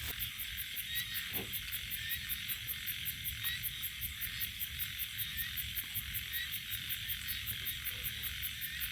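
Outdoor chorus of frogs and insects: a steady high trilling with an even pulse of about four beats a second, over a continuous chirring hum.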